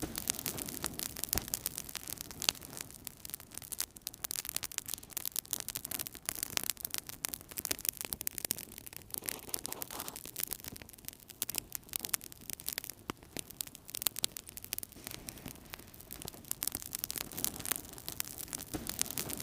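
Wood fire crackling in a fireplace: many quick, irregular pops and snaps over a soft, steady rush of the flames.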